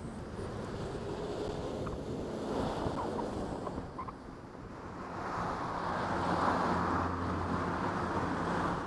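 Car driving along a road, heard from the car: steady tyre and wind noise with a low engine hum, growing louder in the second half.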